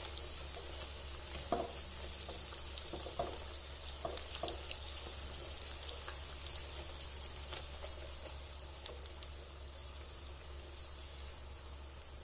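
Poori paratha dough deep-frying in hot oil: steady sizzling with many small crackles, and a few louder clicks in the first half as the spatula presses the bread.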